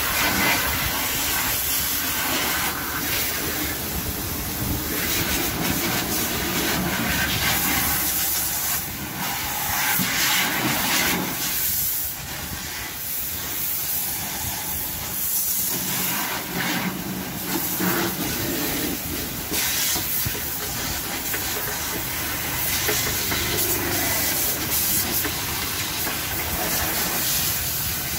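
Water jet from a hose nozzle spraying hard against a car's tyre, wheel arch and underbody, a steady spraying noise with water splashing off onto wet concrete, lighter for a few seconds around the middle.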